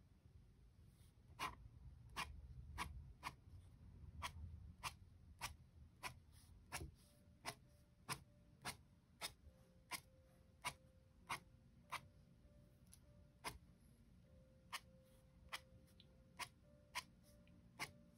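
Faint scratching of a pen on sketchbook paper during hatching strokes, over a steady ticking about every two-thirds of a second. Faint sustained notes of background music come in about halfway through.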